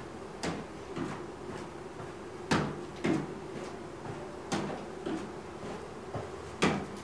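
Feet stepping up onto and down off a step in the steady rhythm of a 3-minute step test: about two footfalls a second, with a louder thud every two seconds or so.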